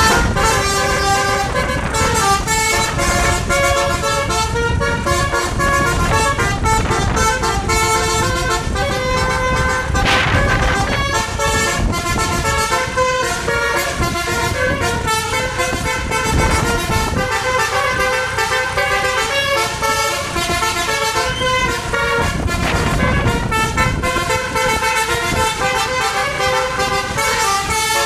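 Bus telolet horn, a multi-tone air horn, playing melodic tunes with notes stepping up and down, over the bus's engine and road noise.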